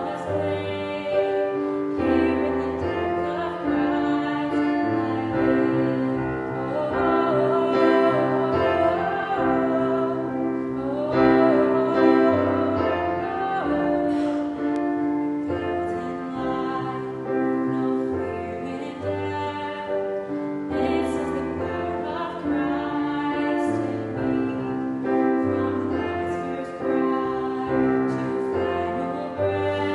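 Music: a singing voice over piano accompaniment, with long held notes that waver in pitch partway through.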